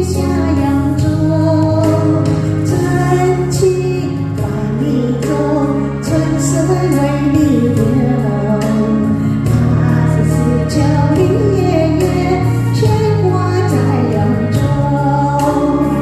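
A woman's voice singing a slow Chinese pop melody over backing music with a steady bass and beat.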